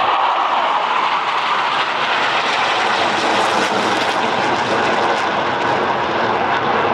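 Jet noise from a low formation of Blue Angels F/A-18 Super Hornets, their GE F414 engines roaring overhead as one loud, steady rush.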